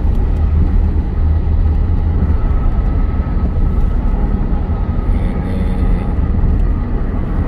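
Steady low rumble of a car's road and engine noise, heard inside the cabin while cruising on a highway, with a faint steady whine above it.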